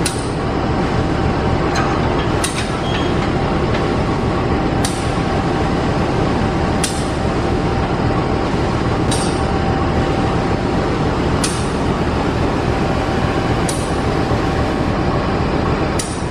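Train hauled by a CC 201 diesel-electric locomotive running loud and steady, with a held mid-pitched tone and a sharp click about every two seconds.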